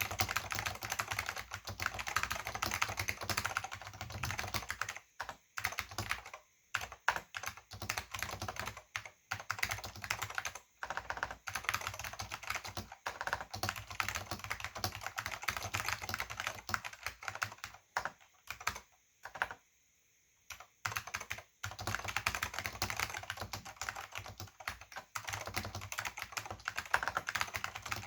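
Fast typing on a Silicon Graphics Granite keyboard with orange Alps SKCM switches and thin PBT dye-sub keycaps: a dense run of clacking keystrokes, broken by a few short pauses near the middle. The sound is hollow, with little bass.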